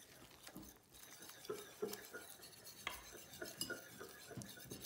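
Wire whisk stirring flour and water into a thick paper mache paste in a bowl, the wires making quiet, irregular clicks and scrapes against the bowl.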